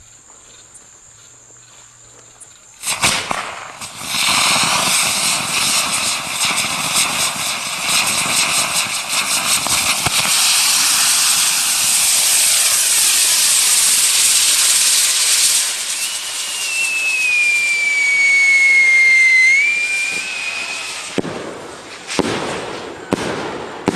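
Homemade fireworks going off. A sudden start about three seconds in leads into a long, loud stretch of dense hissing and crackling. This gives way to a whistle sliding down in pitch for a few seconds, and then several sharp bangs near the end.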